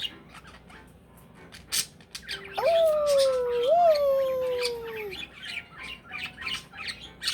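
Pet bird chirping and clicking in quick short calls. About two and a half seconds in comes a louder drawn-out tone that jumps up and slides slowly down in pitch, twice.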